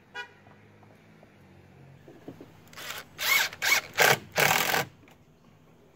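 Ridgid cordless driver running in about five short bursts over two seconds, starting near the middle, driving screws through a metal GA2 angle bracket into a wooden deck post.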